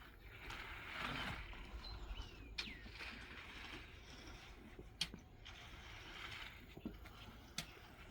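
Concrete pour with a pump truck: a steady low rumble under swells of hissing noise, with three sharp knocks and a brief squeak.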